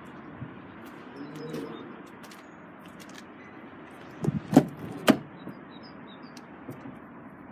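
Car door of a 2008 Volvo V70 estate being opened: a few sharp latch clicks and knocks about four to five seconds in. Faint birds chirp in the background.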